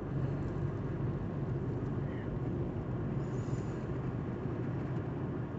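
Steady car cabin noise while driving: a low engine and road hum with no sudden events.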